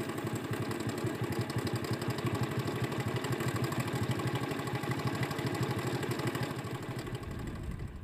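A small engine idling steadily, a fast, even putter.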